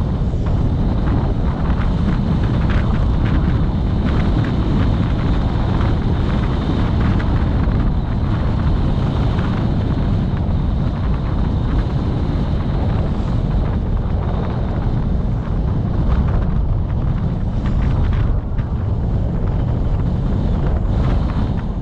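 Steady wind buffeting on the microphone of a vehicle travelling along a road, with the vehicle's running noise underneath.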